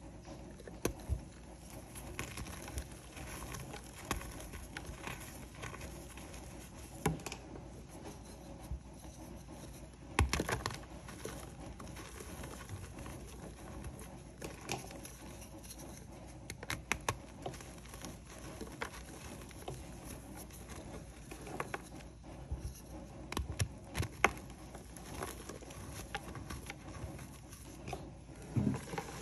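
Reformed chalk blocks being squeezed and broken apart by hand, crunching and crumbling, with dry chalk powder rubbing between the fingers. Irregular soft crackles throughout; the loudest crunch comes about ten seconds in.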